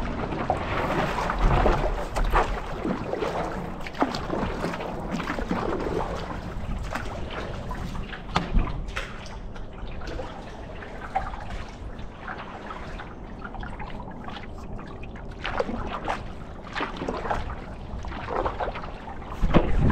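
Water sloshing and dripping against the nose of a stand-up paddleboard as it is paddled along, with irregular sharp splashes.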